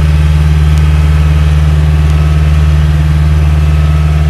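Boat engine running steadily at a constant speed, a loud, even low hum.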